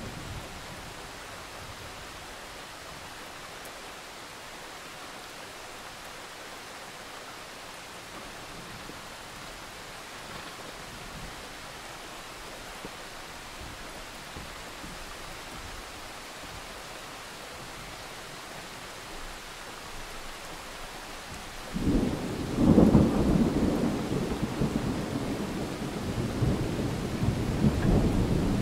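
A steady, even hiss, then a sudden loud low rumble about 22 seconds in that swells twice and rolls on to the end.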